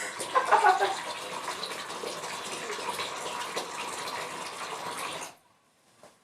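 Running water, a steady rush that cuts off suddenly about five seconds in.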